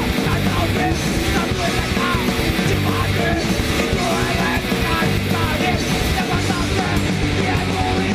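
Punk rock band playing at full volume: distorted electric guitar, bass guitar and drums driving without a break.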